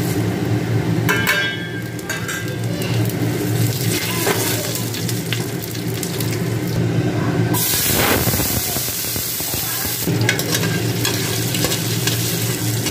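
Whole spices (cumin seeds, dry red chillies, bay leaves) sizzling in hot mustard oil in a pressure cooker, stirred with a metal spoon that clinks against the pot. The sizzling swells to a louder hiss from about seven and a half to ten seconds in.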